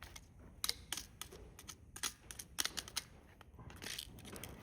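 Light, irregular clicks and taps of a plastic remote control casing and tiny screws being handled and worked loose during disassembly, with a short soft scraping near the end.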